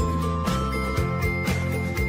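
Background music with a steady beat, about two beats a second, and bright tinkling notes on top.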